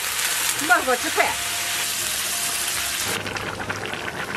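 Boiling water ladled into a large wok of frying chicken pieces, hissing and sizzling loudly as it hits the hot pan. The hiss cuts off abruptly about three seconds in, leaving a quieter simmering with fine ticking bubbles.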